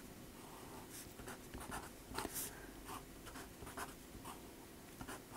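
Fine-tip pen drawing on tractor-feed paper: a run of short, faint, irregular pen strokes as lines and diode symbols are sketched.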